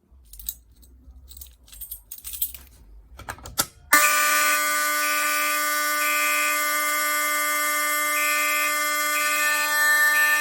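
A few seconds of handling clicks, then about four seconds in fire alarm horns start: a Gentex Commander 3 mechanical horn pulsing in groups of three (code 3 temporal pattern, its own self-coding overriding the panel's march time in walk test) over a second horn sounding continuously.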